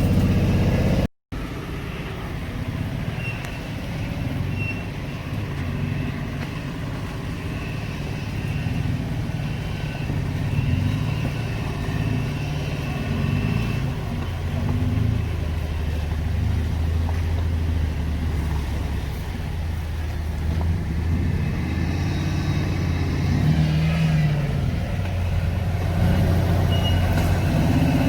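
Off-road vehicle engine running at low revs, its pitch rising and falling as it is driven. The sound cuts out completely for a moment about a second in.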